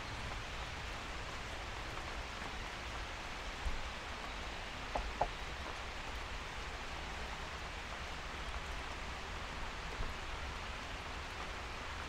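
Heavy rain pouring steadily, heard from under a roofed shelter, with a few louder drips now and then.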